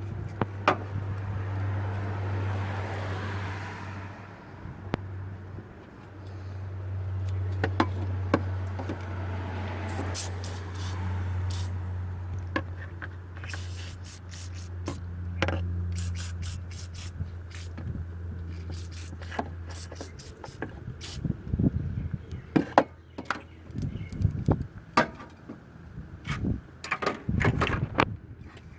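Car engine running with a steady low hum while aerosol engine degreaser hisses out in two long sprays, with clicks and scrapes from handling. The hum stops about twenty seconds in, and a run of knocks and scrapes follows.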